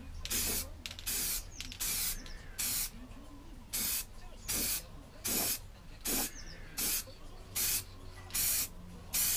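Aerosol spray paint can putting a second coat of gloss onto a lawnmower deck, hissing in short bursts about one every three-quarters of a second as the can sweeps back and forth.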